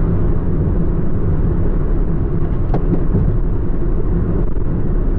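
Steady low rumble of a car driving along a highway, heard inside the cabin: engine and tyre road noise at cruising speed.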